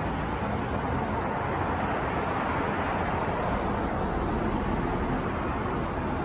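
Steady city traffic noise from New York streets: an even, continuous rush of road traffic with a low hum underneath and no single vehicle or event standing out.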